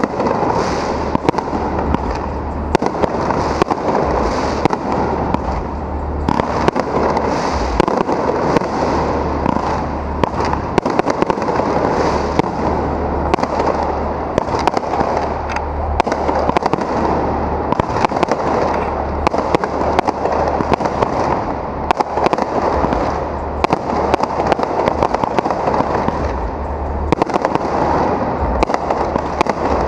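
Aerial fireworks shells launching and bursting overhead in quick succession, a dense, continuous run of bangs and crackling with no pause.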